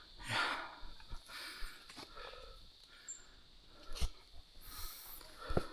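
A hiker breathing hard on a steep mountain trail, with a couple of low thumps from footfalls or the camera being handled and a brief high chirp about three seconds in.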